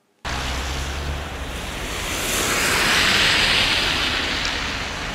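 Wind rushing over the camera microphone, a loud even rush with no tones. It starts abruptly just after the beginning and swells louder in the middle.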